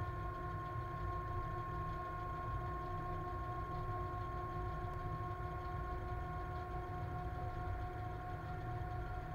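Cab noise of ČD Cargo class 130 electric locomotive 130 028-4 running along the line hauling a freight train of about 1500 tonnes: a steady low rumble with a steady whine on top.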